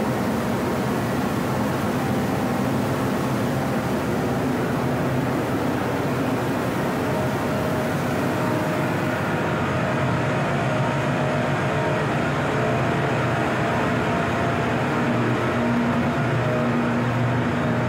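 Steady drone of a ship's machinery, with several low hums held under a constant rush of noise. The higher hiss falls away about halfway through.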